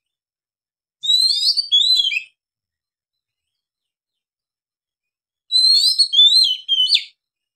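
Oriental magpie-robin singing two short phrases of clear whistled notes, many of them gliding downward, one about a second in and another near the end.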